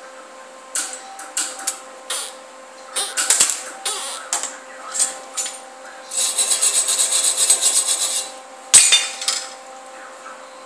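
Hand tools working on the steel brackets of a homemade snowplow wing: scattered clicks and scrapes, then a fast rhythmic rasping for about two seconds, then a single sharp metal knock.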